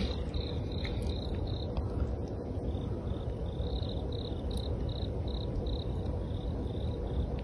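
A cricket chirping in an even rhythm, a short high chirp about two to three times a second, over a steady low rumble.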